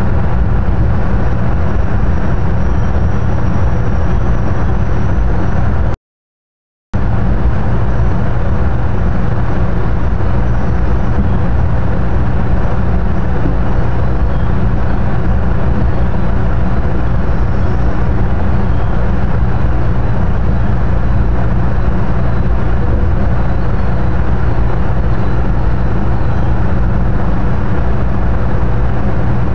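Amtrak California Zephyr passenger train rolling across a steel truss bridge: a steady, loud low rumble, cut off completely for about a second some six seconds in.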